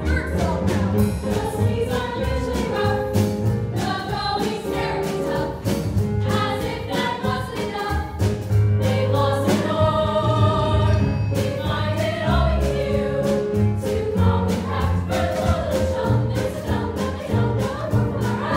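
A stage chorus of voices singing a musical-theatre ensemble number in unison, over instrumental accompaniment with a steady beat and a sustained bass line.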